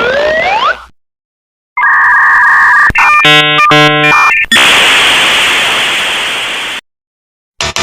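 A string of cartoon sound effects. A rising whistle ends within the first second; after a short gap comes a steady buzzer tone, then a quick run of electronic beeps, then a long burst of hiss that fades and cuts off.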